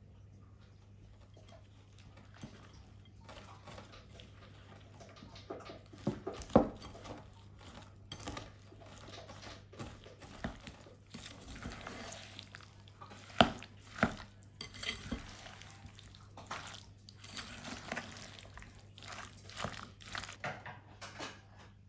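Kitchen utensils and dishes clinking and knocking irregularly, with stretches of scraping between. Two sharper knocks stand out, one about six seconds in and one about thirteen seconds in.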